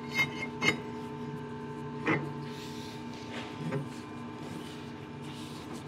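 Metal parts knocking and clinking as a part is worked onto a freshly turned steel mandrel: a few sharp knocks in the first couple of seconds and softer ones near the middle, over a steady machine hum.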